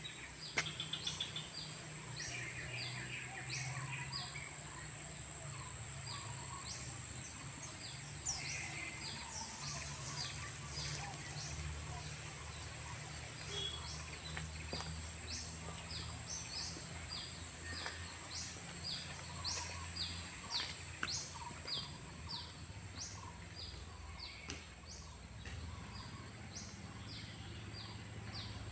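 Birds chirping: many short, high chirps repeated irregularly, over a steady high-pitched insect drone and a low steady rumble.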